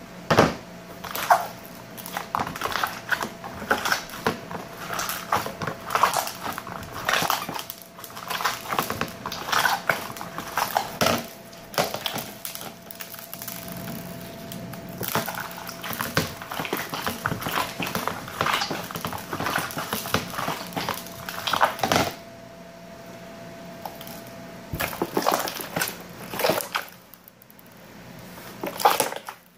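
Slime being squeezed and kneaded by hand: irregular wet squelching and crackling, dense for most of the stretch and sparser near the end. A faint steady hum sits behind it until about three-quarters of the way in.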